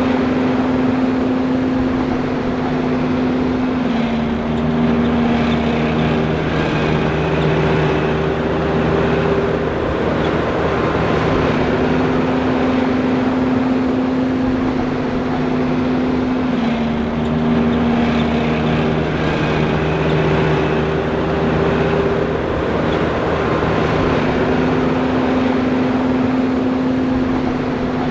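John Deere 5820 self-propelled forage harvester running steadily under load. Its tones step slightly lower and then back up again about every twelve seconds.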